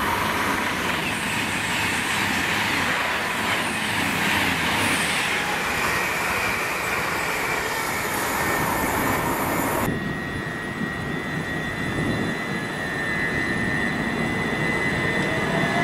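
Virgin Trains Class 221 Voyager diesel-electric unit approaching, its underfloor diesel engines and wheels running loudly. About ten seconds in it cuts suddenly to a Southern Class 377 Electrostar electric unit moving along the platform, with a steady high whine and a rising motor whine near the end.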